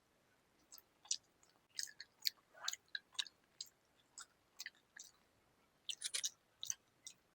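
Close-up eating sounds: a person chewing a mouthful, with irregular short wet clicks and smacks, busiest in two spells, near the start and again near the end.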